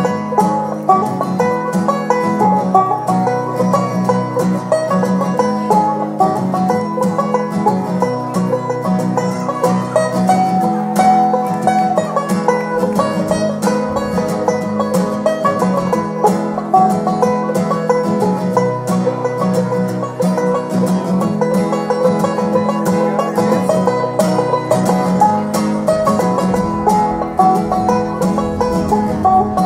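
Acoustic guitar and banjo playing a bluegrass song together, the banjo picking quick runs of notes.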